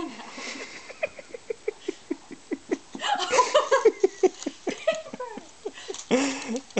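Baby's rapid run of short excited squeals and grunts, about three or four a second, with a few longer breathy squeals.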